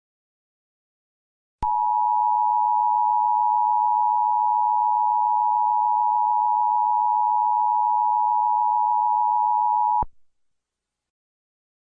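Emergency Alert System two-tone attention signal: a steady, unwavering dual-pitch alarm tone that starts about a second and a half in, holds for about eight seconds and cuts off sharply.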